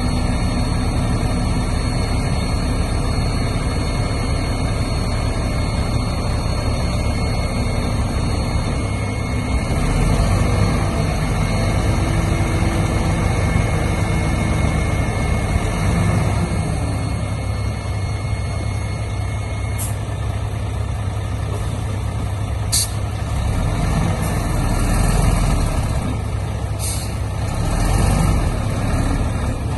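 Heavy diesel earthmoving machinery, a bulldozer and dump truck, running with a steady low engine rumble. There are a few short sharp noises in the second half.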